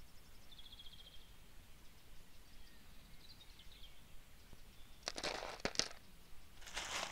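Quiet outdoor ambience with a faint, rapid high-pitched chirping trill near the start and a softer chirp a few seconds later. About five seconds in comes a burst of rustling noise with small clicks, and another starts near the end.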